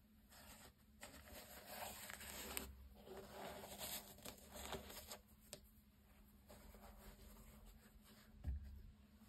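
Faint rustling and scuffing of white-gloved hands handling a basketball sneaker, its knit upper and laces rubbing under the fingers, with small clicks. A short, soft thump comes near the end as a shoe is set down on the table.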